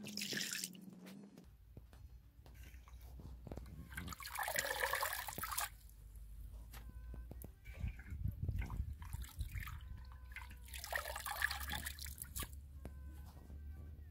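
Hands swishing leafy greens around in a metal basin of water, with water dripping and trickling as handfuls are lifted out. There are two louder bouts of splashing, about four and about eleven seconds in.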